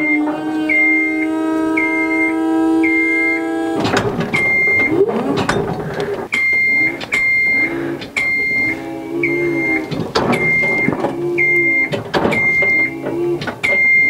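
Genie scissor lift's motion alarm beeping about once a second while its electric hydraulic pump hums steadily as the platform rises. The hum stops about four seconds in, and the pump then runs in short, uneven spurts between beeps as the platform is inched into position.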